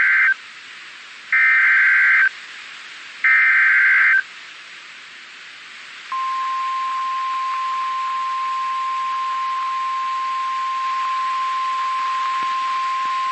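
Emergency Alert System SAME header on NOAA Weather Radio: three one-second bursts of buzzing data tones, then after a short hiss-filled pause, a steady single-pitch 1050 Hz warning alarm tone starting about six seconds in. It signals that a warning broadcast follows.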